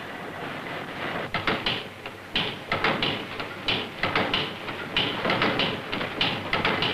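Diesel's 1894 experimental compression-ignition engine on its first trial run: a hiss builds, then from about a second in come irregular mechanical clanks and hissing puffs, several a second.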